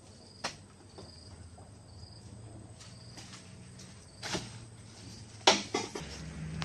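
Oil palm fruit bunches thudding and knocking as they are thrown onto a pickup truck's cargo bed: a single knock early, another about four seconds in, then a quick cluster of louder hits near the end. Insects chirp in short repeated calls throughout.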